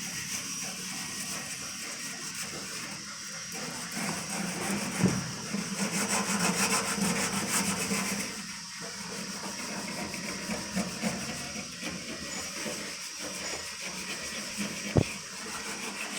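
Sanding on car body sheet metal: a steady scratchy rubbing that grows louder from about four to eight seconds in, with two sharp knocks, one about five seconds in and one near the end.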